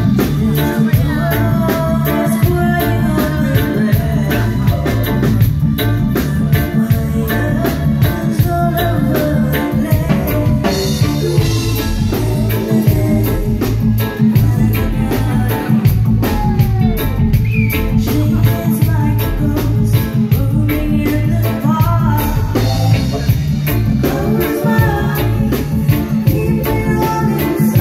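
Live reggae band playing a song with a steady drum beat, a woman singing lead into a microphone.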